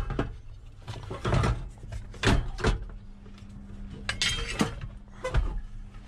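Scattered knocks and clunks of parts being handled and pushed aside during hands-on work under a truck's dashboard, about half a dozen spread over several seconds, with a faint steady hum underneath from about two seconds in.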